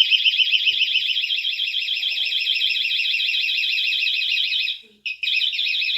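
Electronic alarm sounding: a loud, high, rapidly warbling tone that cuts out for a moment near the end, then starts again.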